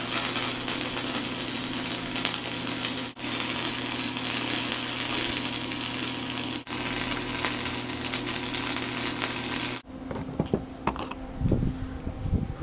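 Flux-core wire-feed welder arc crackling steadily as a bead is run on steel hull plate, over a steady low hum. The arc breaks off for a moment twice and stops about ten seconds in, followed by a few handling knocks and rustles.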